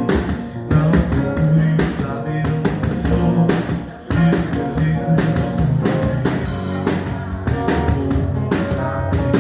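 Live forró band playing an instrumental passage with a steady dance beat of plucked strings and drums.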